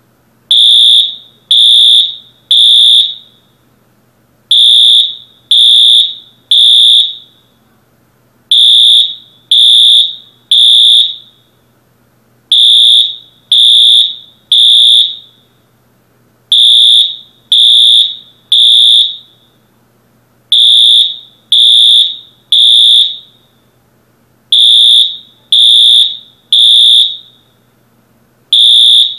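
A building fire alarm sounds loudly in the temporal-three evacuation pattern: three high beeps, a pause, then three more, repeating about every four seconds.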